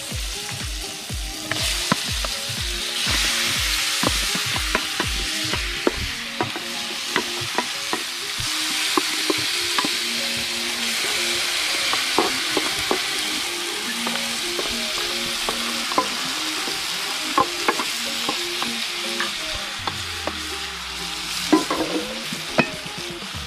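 Seasoned chicken back frying in hot oil in an aluminium pot, a steady sizzle throughout. Sharp knocks and scrapes of a wooden spoon against the pot and bowl as the meat is scraped in and stirred.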